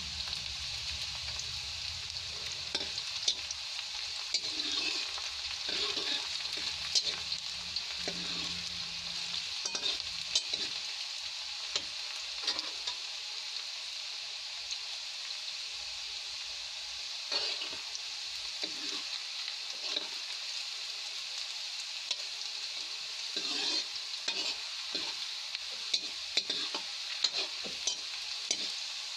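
Sliced onions frying in hot oil in a kadhai, a steady sizzle, as they brown toward light golden. A metal ladle stirs and scrapes against the pan now and then, in short clusters of strokes.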